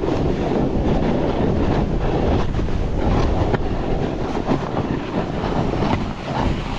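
A snowboard sliding and carving fast down steep snow, a steady scraping hiss of the board's edges through the snow, with wind rumbling on the microphone.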